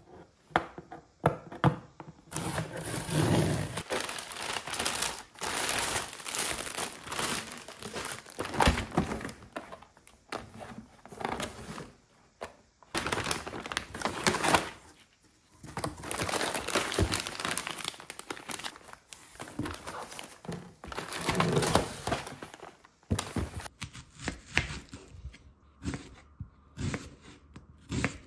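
Packaging crinkling and being torn open in repeated handling bouts, with occasional knocks; the sound becomes sparser, mostly light clicks, near the end.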